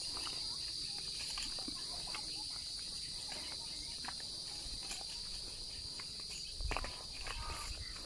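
A steady, high-pitched chorus of insects droning without a break, with the scattered soft clicks of footsteps and brushing on a dirt path through vegetation, and a low bump a little before the end.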